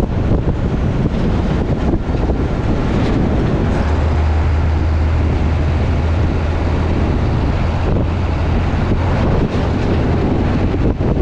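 A truck driving at speed: steady wind noise buffeting the microphone over road noise, with a low drone from the truck that grows stronger about four seconds in and eases near the end.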